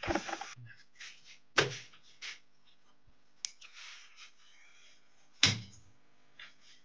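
A butcher's cleaver chopping a whole plucked chicken on a wooden chopping block: a few heavy chops a second or more apart, the loudest about five and a half seconds in.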